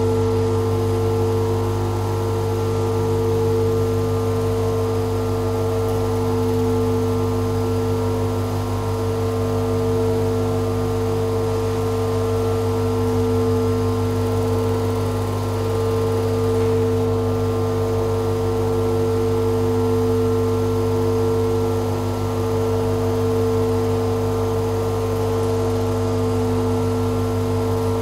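Sustained ambient drone: several steady held tones over a strong low hum, with no beat or melody.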